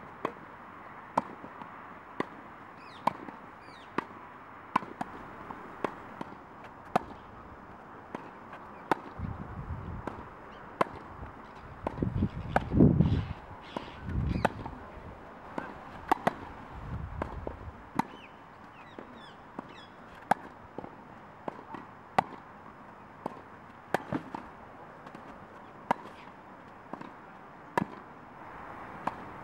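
Tennis balls struck by rackets during a baseline rally: sharp, regular pops about once a second. A low rumble comes in for several seconds in the middle.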